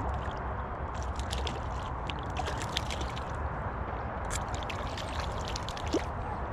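Small hooked rainbow trout splashing at the surface as it is reeled in to the bank, with water sloshing and clusters of quick, crisp ticks.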